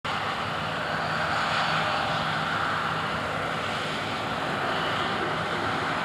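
Case IH 9230 Axial-Flow combine running while it cuts wheat: a steady, even drone of its engine and threshing machinery.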